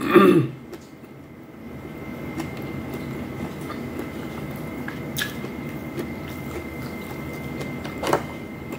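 A short falling hum at the very start, then a steady low rumble with a couple of faint sharp clicks.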